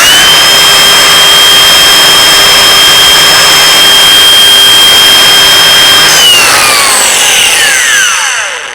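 Ridgid Octane 18V brushless cordless angle grinder running free at full speed with a loud, steady high whine. About six seconds in it is switched off and winds down, its pitch falling over a couple of seconds as the electric brake stops the disc.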